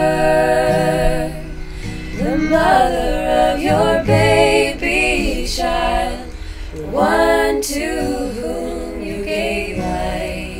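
Two women's voices singing together in harmony, one carrying the melody and the other a harmony line, with long held notes.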